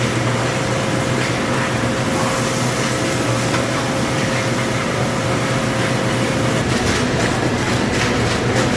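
A train running along the rails: a loud, steady rumble with a steady whine that stops about six and a half seconds in.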